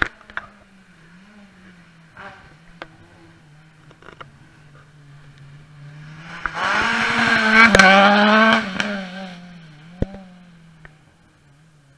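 Rally car passing at speed on a wet road, its engine revving up as it goes by over the hiss of tyres on wet tarmac, with a sharp crack mid-pass. A few sharp clicks come before the car arrives.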